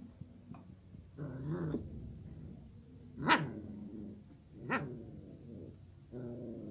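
Puppies play-fighting, a Rottweiler puppy and a mixed-breed street-dog puppy: low growls, and two sharp barks about a second and a half apart midway, the first the loudest.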